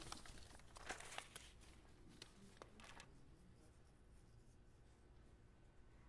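Near silence: room tone, with a few faint rustles and small clicks in the first three seconds.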